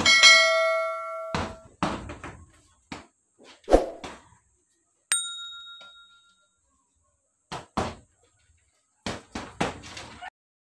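Gloved punches thudding into a hanging heavy bag in quick combinations of two to four strikes with pauses between. A bell-like chime rings out at the start, and a short high ding sounds about five seconds in.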